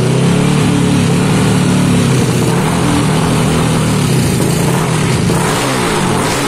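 Freshly tuned-up Yamaha Aerox scooter engine running at a held fast idle. Near the end, the throttle is blipped several times, so the engine note rises and falls repeatedly.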